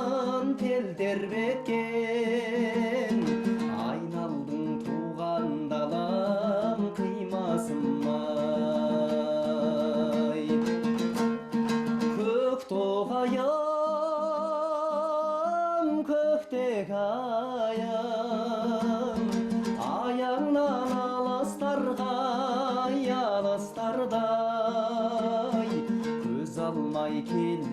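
A song: a voice singing long, wavering notes with vibrato over a plucked string accompaniment, with steady held notes underneath.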